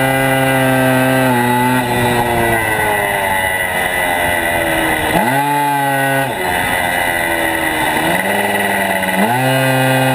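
Motorcycle engine running hard at high revs, the note dropping off and climbing back as the throttle is closed and reopened: it falls away about a second in, stays rough and unsteady for a few seconds, rises sharply around five seconds, drops again, and climbs once more near the end.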